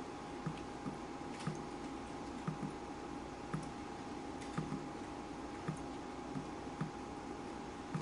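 Water dripping: drops falling at an uneven pace, roughly one or two a second, each a short low plop with a faint click. Underneath runs a steady faint hiss with a thin steady tone.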